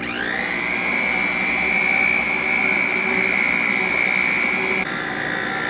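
Electric stand mixer switched on, its motor whine rising quickly to a steady high pitch as the wire whisk beats thick oatmeal raisin cookie dough. About five seconds in the whine drops to a slightly lower pitch.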